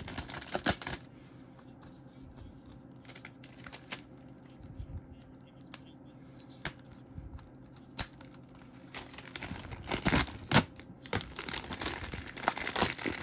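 Plastic shrink-wrap being torn and pulled off a CD case, crinkling in short bursts at first, then a few sharp clicks and taps, then more continuous, louder crinkling over the last few seconds.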